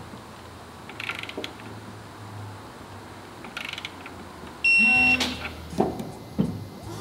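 One loud electronic beep, a steady high tone about half a second long, just under five seconds in. Around it come metallic clinks and knocks of parts being handled as a differential is worked into place, with two sharp knocks near the end.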